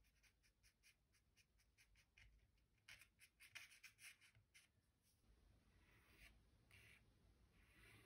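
Faint scratching of an ink-dipped twig on paper, in many quick short strokes, with a denser, louder flurry about three to four and a half seconds in and a few longer strokes after.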